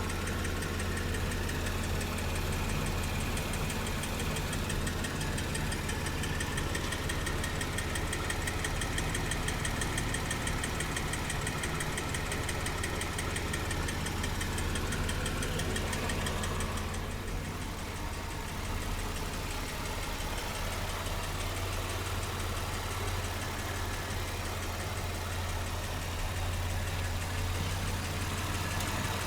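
Mitsubishi 6G72 V6 engine idling steadily with a fast, even ticking knock running through it. The sound dips briefly a little over halfway through. This is the unexplained knock that the owner is trying to identify.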